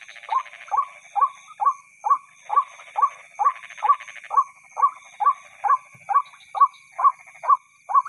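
White-breasted waterhen (ruak-ruak) call: a short rising note repeated very steadily, just over twice a second.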